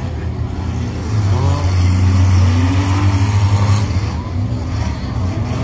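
Engines of a pack of old street cars racing around a dirt oval, a steady low drone that grows louder about a second in, with engine pitch rising and falling.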